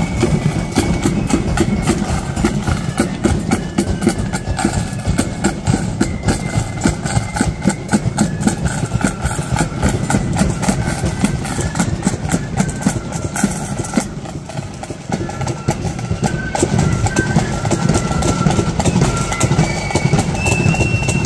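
Marching flute band playing: snare drums and a bass drum beat a fast, dense rhythm while flutes play a high melody that stands out more clearly in the second half. The drumming drops back briefly about two-thirds of the way through.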